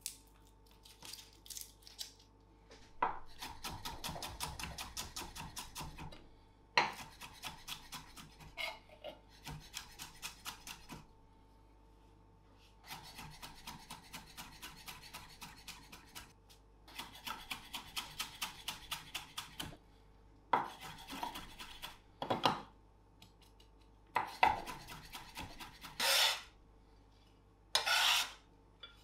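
Chef's knife mincing garlic on an end-grain wooden cutting board, in several runs of quick chopping strokes at about five a second. Near the end come a few separate louder scrapes and knocks as a metal bench scraper gathers the chopped herbs off the board.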